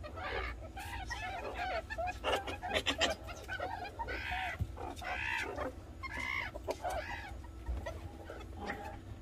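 Meerkats chirping: a fast, irregular run of short calls, several a second.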